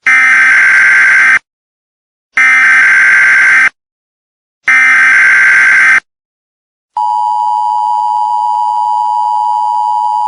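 Emergency Alert System tones. First come three identical buzzy SAME header data bursts, each a little over a second long with about a second of silence between them. Then, about seven seconds in, the steady two-tone EAS attention signal starts and holds.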